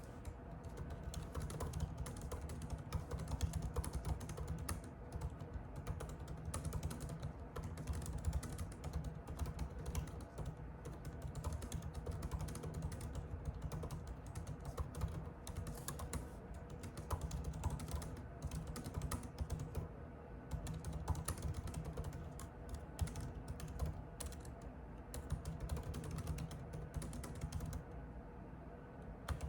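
Typing on a computer keyboard: a fast, continuous patter of key clicks, broken by brief pauses every few seconds.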